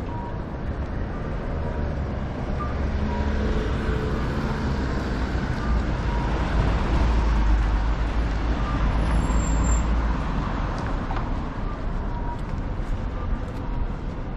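Street traffic noise with a heavy road vehicle passing close: a low rumble that builds to its loudest about halfway through, then eases off.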